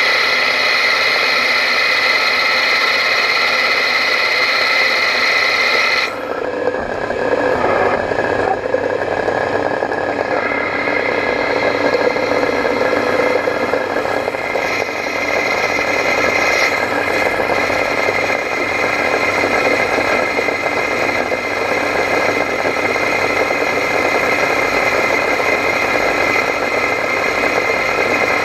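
Prototrak lathe running with its chuck spinning a small nozzle blank: a steady machine whine with several high tones. About six seconds in, the high whine cuts off suddenly and leaves a rougher, noisier running sound. The steady tones come back a few seconds later.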